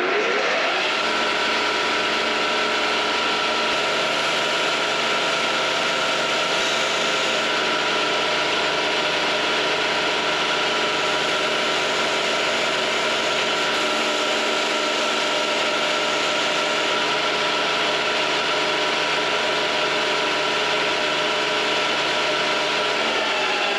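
Grinder motor spinning up in the first second, running at a steady pitch with a whine, and winding down at the very end, used to put an edge on an old 25 mm drill bit.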